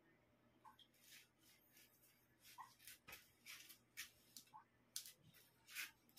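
Near silence: room tone with faint, irregular clicks and rustles.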